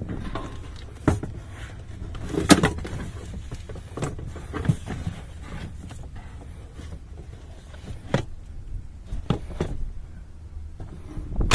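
Scattered knocks and clunks of a folding stepladder being slid and wedged into a van's cargo space, the hardest about two and a half seconds in and at the end, over a low steady rumble.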